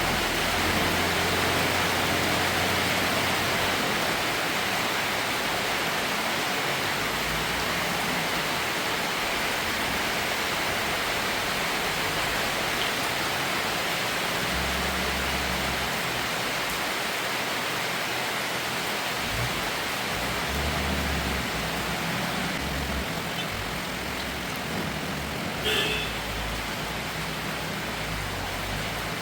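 Heavy rain falling on the Maruti Suzuki Gypsy, a steady hiss, with a low rumble that comes and goes underneath and one short click near the end.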